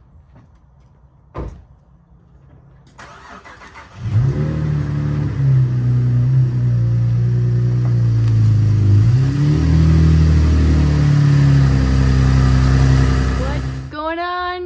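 A vehicle engine starting about three seconds in, then running loudly with its revs rising and falling, stopping abruptly near the end.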